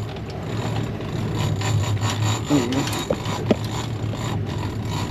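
Fishing boat's motor running steadily with a low hum, under a haze of wind and water noise and some rubbing and handling of gear.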